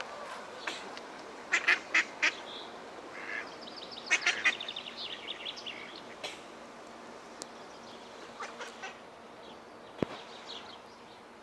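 Ducks quacking: a cluster of loud quacks about two seconds in, then a quick run of quacks a little later, and scattered quieter calls afterwards. A single sharp click comes near the end.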